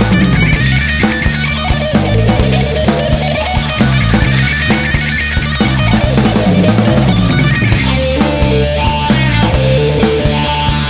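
Rock band recording: electric guitar, bass and a full drum kit playing at a steady, loud level.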